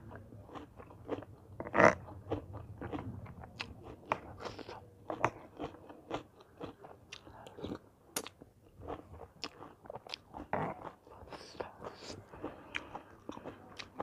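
Close-up chewing and crunching of a Thai mixed seafood salad (tam thale ruam) with sweet corn, squid and shrimp: irregular wet bites and crunches, with a louder sudden click about two seconds in.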